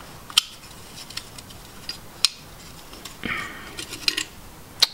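Small metal parts clicking and clinking against the alternator's rear housing as they are handled and fitted by hand: three sharp clicks about two seconds apart, with lighter ticks and a brief scrape between.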